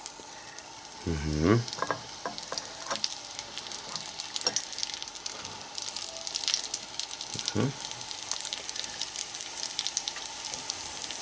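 Halved puffball mushrooms frying in melted butter in a pan: a steady sizzle with fine crackling, as more pieces are dropped in by hand.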